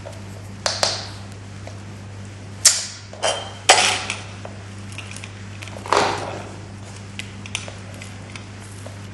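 A handful of sharp plastic clicks and knocks, the loudest about two and a half and three and a half seconds in and another near six seconds, as a plastic treat scoop and target stick are handled on a wooden floor. A steady low hum runs underneath.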